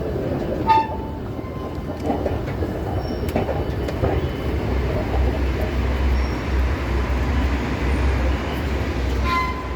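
A train running through the station, its low rumble growing stronger about halfway through, with a short high tone about a second in and another just before the end.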